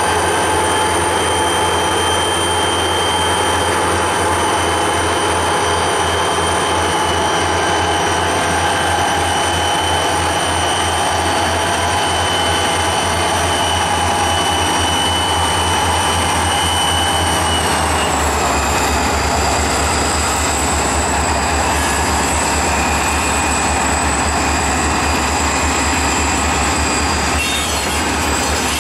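Diesel freight locomotives working hard as they pass close by, hauling a heavy loaded scrap train up a grade, with a low engine throb under a high steady whine. The whine drops in pitch about eighteen seconds in as the second unit passes.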